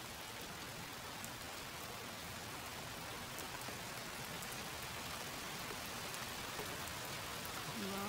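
Steady rain falling on a backyard's bare ground and concrete: an even hiss of many drops.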